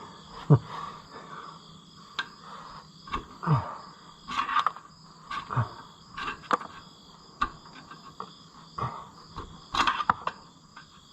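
Irregular clicks, clinks and short scrapes of hand tools working on metal, heard over a steady faint high-pitched chirring background.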